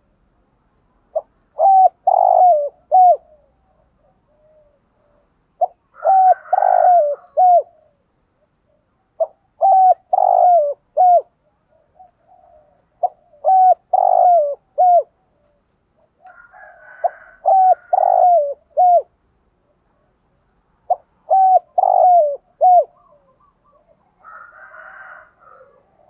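Spotted dove cooing its song: six phrases of four or five short coos each, about one phrase every four seconds, with a softer, rougher call near the end.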